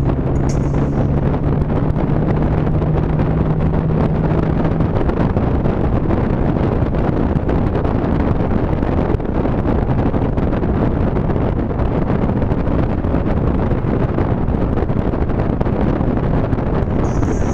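Heavy wind noise buffeting through a car's partly open passenger window at speed, over road and engine noise. A steady low hum sits underneath for the first five seconds or so, then fades out.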